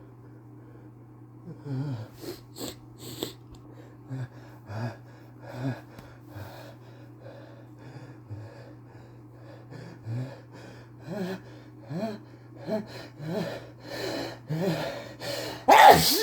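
A person's pre-sneeze hitching: a series of short, whiny catching breaths that come closer together toward the end. It ends in the start of a loud sneeze. A steady low hum runs underneath.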